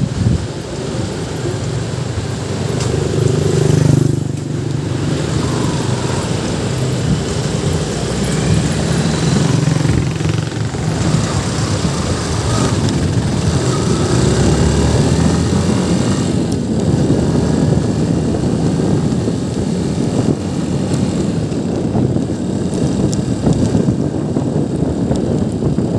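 Motorcycle engine running while riding along a road, with steady road and wind noise; the engine pitch shifts a little as speed changes.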